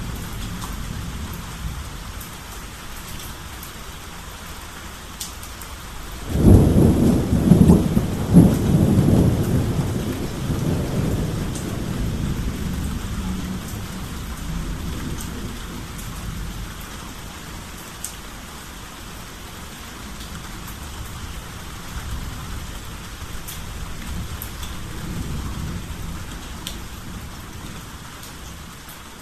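Steady rain falling, with a thunderclap about six seconds in that cracks twice and then rumbles and fades away over several seconds.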